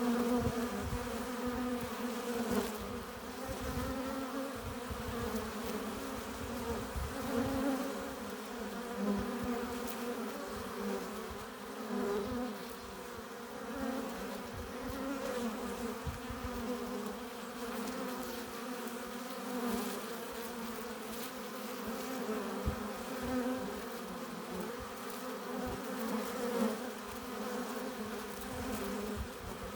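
Honeybees buzzing at a hive entrance: a dense, wavering hum of many bees, with single bees swelling louder now and then as they fly close past.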